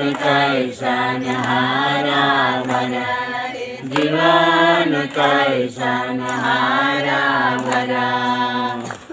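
A group of voices singing a slow devotional song together in unison, in long held phrases with short breaks between them.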